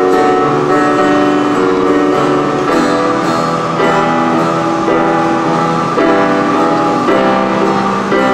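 Music led by strummed acoustic guitar, with sustained chords that change about once a second.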